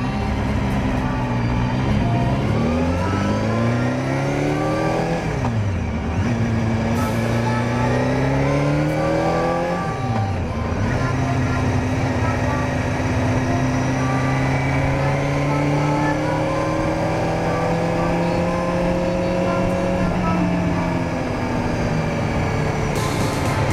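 Honda CBR250R MC19's 250 cc inline-four engine pulling through the gears: the pitch climbs, drops sharply at upshifts about five and ten seconds in, then holds nearly steady while cruising, dipping once more near the end.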